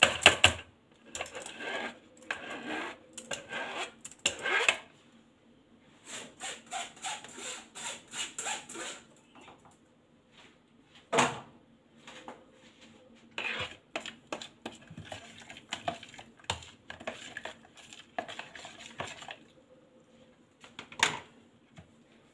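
Metal spoon scraping and clinking against a stainless-steel mesh sieve in repeated short strokes, pressing blended kiwi pulp through it, with a few louder single knocks.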